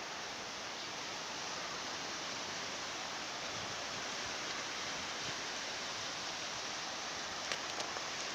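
Steady hiss of surf washing on the beach, unbroken and even, with two short clicks near the end.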